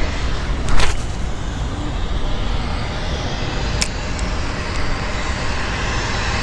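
Steady rushing outdoor noise with a fluctuating low rumble, broken by a sharp click a little under a second in and a lighter one near four seconds.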